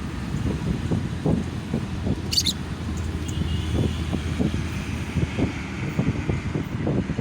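Road traffic noise with wind buffeting the microphone, and one brief high chirp about two seconds in.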